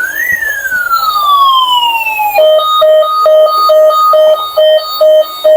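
Toy police truck's electronic siren: one wail sliding up and then down, which about two and a half seconds in switches to a fast repeating beep pattern of about three beeps a second.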